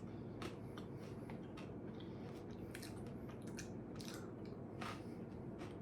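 A person chewing a mouthful of crunchy corn snack, giving faint, irregular crunches with the mouth.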